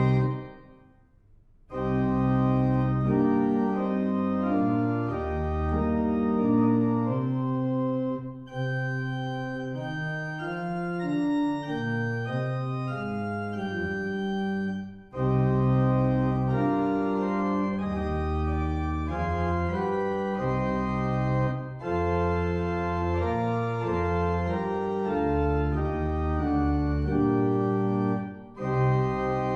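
Organ playing a hymn tune without singing: sustained chords in phrases, with a short break between lines about every six or seven seconds.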